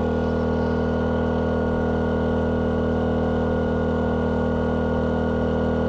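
DuroMax XP2000is inverter generator running under a 1,500-watt load, near its full capacity, so its engine is held at high speed. A steady, even hum with several constant tones.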